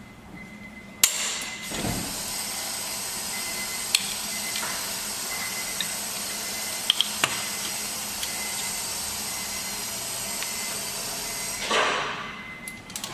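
Compressed air hissing steadily in a workshop for about ten seconds, opening with a sharp knock about a second in and cutting off abruptly near the end, with a few light clicks along the way.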